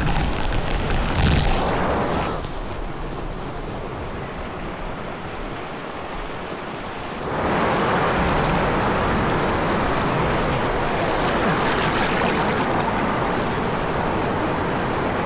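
Whitewater rushing and splashing past a kayak's hull as it runs a river rapid, heard close to the water. The rush turns duller and quieter for a few seconds, then about seven seconds in it abruptly becomes louder and fuller again.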